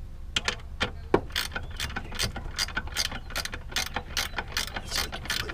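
Ratchet wrench clicking in quick, uneven runs of about four or five clicks a second, as the ratchet is worked at the truck's master cylinder.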